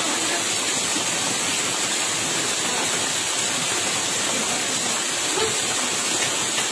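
Heavy rain and rushing floodwater: a steady, even hiss of water.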